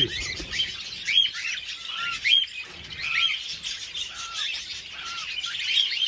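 Young cockatiels chirping: a string of short whistled chirps that rise and fall, one or two a second, some higher and some lower in pitch.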